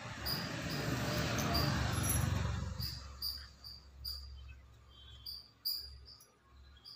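Rustling and handling noise close to the microphone for about the first three seconds, then dying away. Throughout, a short high chirp repeats a few times a second, cricket-like.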